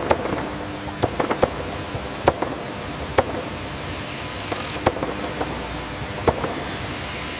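Sawmill machinery running steadily with a faint hum, broken by a dozen or so sharp, irregular knocks and clunks.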